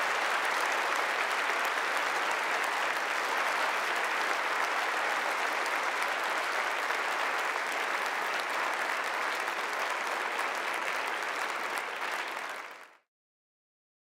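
Large audience applauding steadily, many hands clapping at once, fading out quickly near the end.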